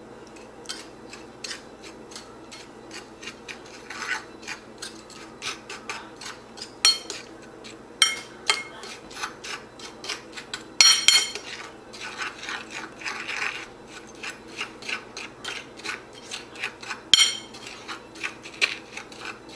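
Metal spoon stirring sugar and ground cinnamon on a glazed ceramic plate: an irregular run of gritty scrapes, broken by several sharp clinks of the spoon against the plate, the loudest about halfway through.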